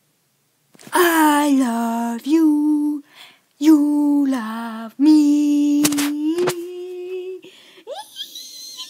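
A young person singing unaccompanied: four drawn-out notes starting about a second in, the first and third dropping in pitch partway, the last held for over two seconds. Two sharp clicks come during the last note, and a short rising glide follows near the end.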